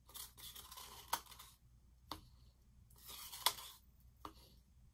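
Wooden craft stick scraping thick acrylic paint out of a paper cup: two stretches of rough scraping, with a few sharp clicks of the stick against the cup.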